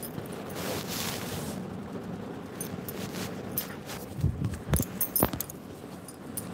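Handling noise from a phone being moved about: a second or so of rustling, then several sharp clicks and knocks, the last one about five seconds in.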